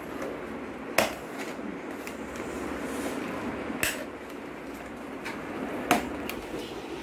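Scissors cutting paper: three sharp snips of the blades closing, about one, four and six seconds in, with fainter rustles and ticks of the paper between them, over a steady low background hum.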